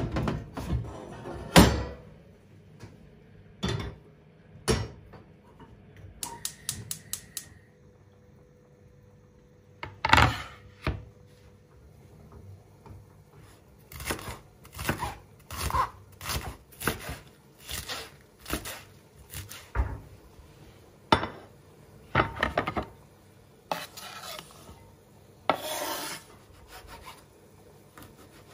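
Household handling sounds, likely in a kitchen: scattered knocks and clinks of dishes and utensils, then a run of repeated rubbing or scraping strokes roughly once a second.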